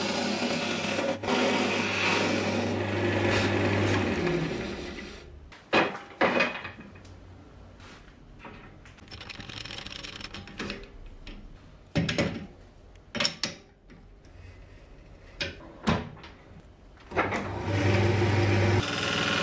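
Wood lathe running with a low motor hum while a gouge cuts a spinning wooden blank; the cutting and hum stop about four seconds in. Then scattered metal clunks and clicks as a metal chuck is handled and threaded onto the lathe spindle, and near the end the lathe starts running again with its steady hum.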